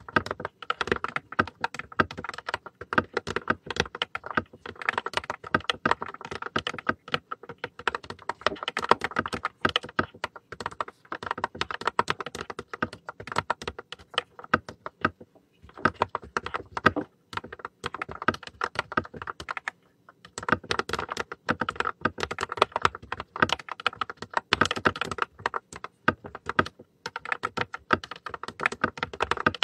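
Fast, continuous typing on a mechanical keyboard: a dense run of key clicks, pausing briefly about fifteen seconds in and again about twenty seconds in.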